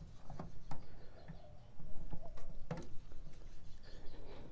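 Plastic clicks, knocks and scraping as the in-tank fuel pump module is worked up and out of the fuel tank through its access opening, with small squeaks of plastic and rubber gloves rubbing. A sharper click comes a little past the middle.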